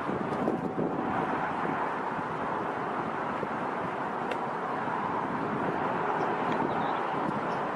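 Steady rushing noise of airliner jet engines mixed with wind, with no distinct events.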